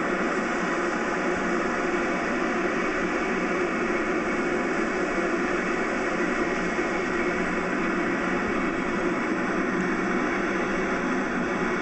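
Concorde's four Olympus 593 turbojets idling on the ground: a steady, unchanging rushing roar. It is heard off an old VHS tape played through a television speaker, so it comes through thin and hissy.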